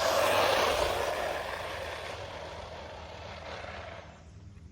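A 1/14-scale brushless RC truggy running flat out on a speed pass. The high-speed motor and tyre noise is loudest right at the start, then fades over about four seconds as the truck speeds away.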